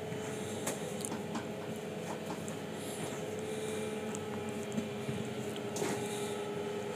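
A few light knife knocks on a wooden chopping board as sweet potato is diced, then diced sweet potato slid off the board into a stainless steel bowl, over a steady hum.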